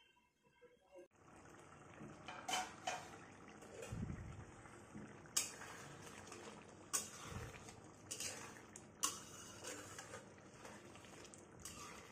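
Metal spatula stirring potato curry in a metal kadhai, starting about a second in, with sharp clinks and scrapes against the pan every second or so over the thick gravy.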